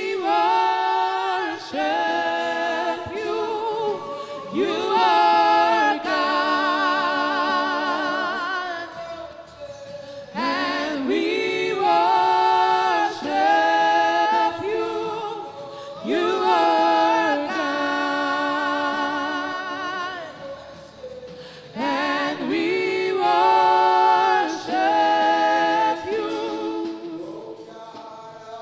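Gospel worship singing: voices sing repeated phrases with long held notes that waver in pitch, in three similar phrase groups with short breaks between them.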